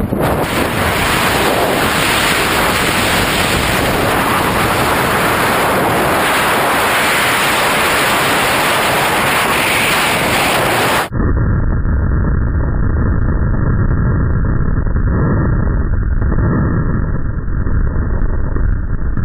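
Loud wind buffeting the microphone in skydiving freefall, a steady rushing noise across all pitches. About eleven seconds in it cuts suddenly to a duller, muffled low rumble.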